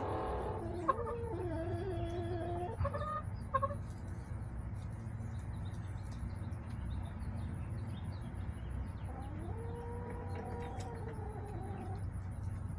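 Backyard chickens clucking in a run of short calls, then one long drawn-out call about nine seconds in, over a steady low hum.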